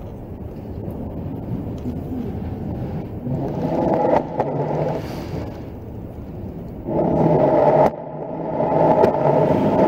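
A congregation sitting down in wooden church pews: shuffling, rustling and scraping.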